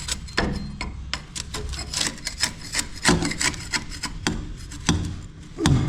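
Scraping and picking at a soaked wall-compound patch over a rusted, rotting metal window sill: irregular scratches, rasps and small clicks.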